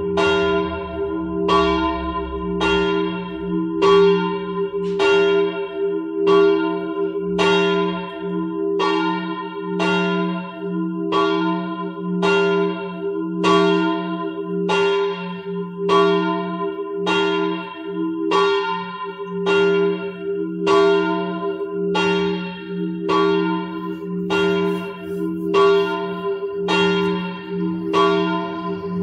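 The smallest of a three-bell church peal, believed cast by L. Broili around 1956, swung on its own (rung a distesa) to call to the rosary. Its clapper strikes at an even pace, about three strokes every two seconds, and each stroke rings on over a steady hum.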